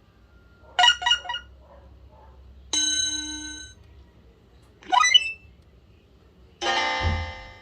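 Short electronic alert tones from a BlackBerry Curve 8900 phone, played one after another: a quick three-note figure, a held chime, a short rising glide and a dense chord, each about a second long with pauses between them.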